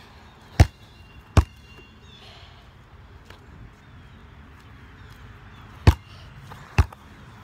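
Four sharp thumps of landings on a trampoline, in two pairs: two quick ones about a second in, then two more near the end.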